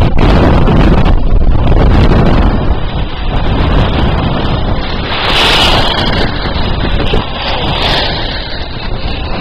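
Wind buffeting the camera microphone: a loud, unsteady low rumble, with two brief hissing surges about five and eight seconds in.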